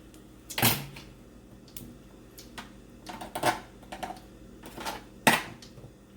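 Kitchen scissors cutting boiled lasagna noodles: a few sharp, irregular snips and clicks of the blades, the loudest under a second in and about five seconds in.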